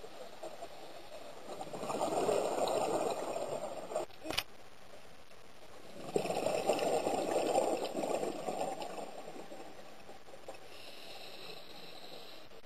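Scuba diver's exhaled bubbles from a regulator underwater: two bubbly bursts about four seconds apart, with a short click between them.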